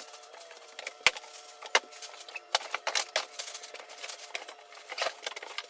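Scattered light knocks, clicks and rustles of handling couch sections and their packaging, with one sharper knock about a second in, over a faint steady hum.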